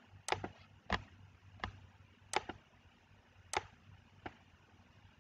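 Computer mouse clicks, faint and sharp, about seven at irregular intervals.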